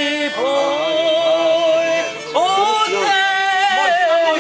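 A singer holding long notes with vibrato over backing music, with a brief break between phrases about two seconds in.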